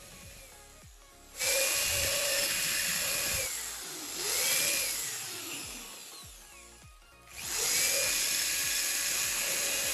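Drill fitted with a small cutting disc, cutting through a plastic box held in a vise. It runs in two spells, from about a second and a half in and again from about seven seconds in, its high whine dipping and recovering as the disc bites.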